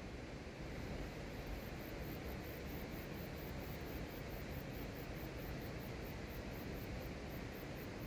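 A steady, even rushing hiss of outdoor ambience, with a faint, very high ticking about four times a second.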